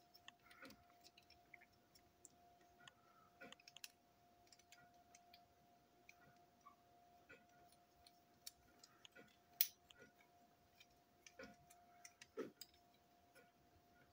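Scattered faint clicks and light taps of small model railway coach parts being handled and set down on a table, with one sharper click about two-thirds of the way through. A faint steady hum runs underneath.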